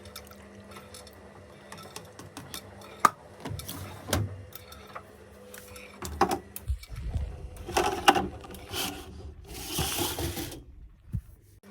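Zanussi FL984CN front-loading washing machine in its wash cycle: a steady motor hum with irregular clicks, knocks and swishes as the drum turns the wet laundry, busiest in the second half.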